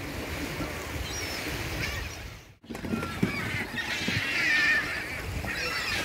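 A flock of gulls calling, many short harsh cries that come thickest in the second half, over a steady low wash of surf and wind. The sound cuts out for a moment about halfway through.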